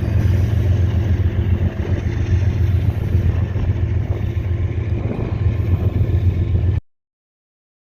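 Steady, loud low rumble of a departing passenger train, cutting off suddenly about seven seconds in.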